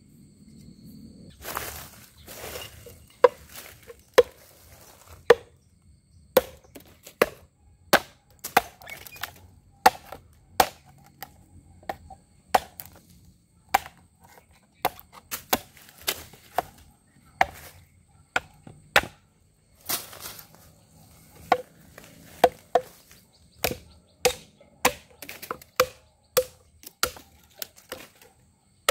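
A kukri knife made from a chainsaw bar chopping into wood: a long run of sharp single chops, about one a second and sometimes quicker, starting about a second and a half in.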